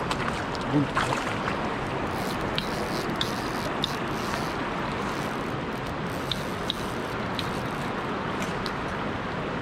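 Steady rush of a flowing river, with a few faint high ticks scattered through it.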